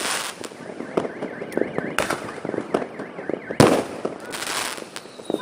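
Fireworks going off: several sharp bangs, the loudest about three and a half seconds in, with scattered crackling between them and a car alarm warbling faintly behind.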